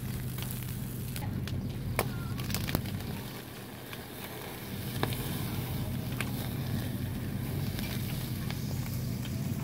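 Whole catfish grilling over a charcoal fire: the coals crackle with scattered sharp pops and snaps, over a steady low hum.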